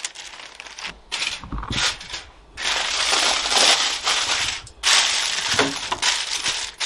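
Aluminium foil crinkling as a sheet is spread over a baking tray and pressed down by hand, loud from about two and a half seconds in. Softer rustling of parchment paper comes before that.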